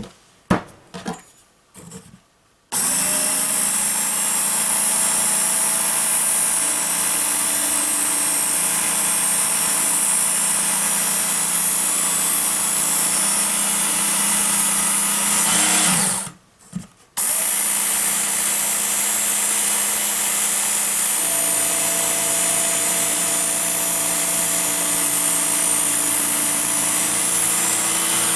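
Work Sharp electric belt knife sharpener running steadily, its motor and abrasive belt whirring as a butcher knife is run through it to sharpen out a flat spot on the edge. A few light clicks come first, and the motor switches off about halfway through and starts again a second later.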